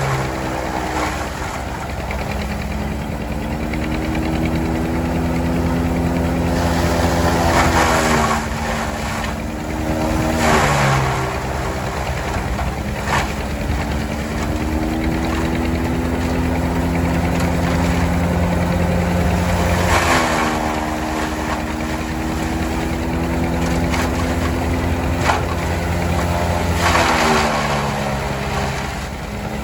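A tractor engine running hard, its pitch falling and rising again several times in slow swells every several seconds.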